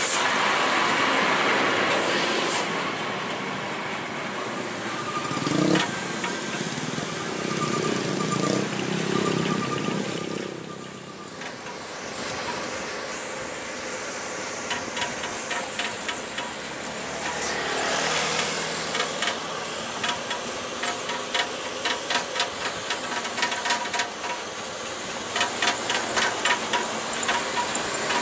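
Road and engine noise from a tow truck hauling a crash-damaged bus, a steady hiss throughout. From about halfway through there is a run of quick clicks.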